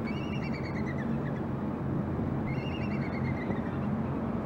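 Bald eagle calling twice, each call a quick run of high, chattering notes that fall in pitch, over a steady low hum.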